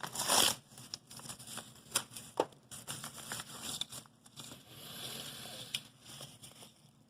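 Small plastic parts handled by hand: a blower fan and printed fan bracket rustling, with scattered sharp clicks and taps as they are fitted together, and a burst of rustling right at the start.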